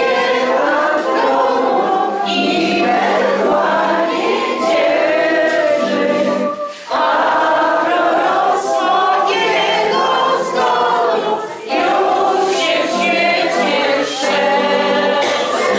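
A choir singing, the phrases broken by two short pauses about six and a half and eleven and a half seconds in.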